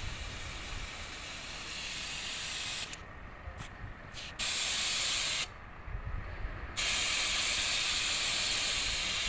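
High-pressure water spray hissing from the spray gun of an HTP triplex piston sprayer pump. It stops twice, about three seconds in and again about five and a half seconds in, each time for roughly a second, and comes back louder as a wide fine mist.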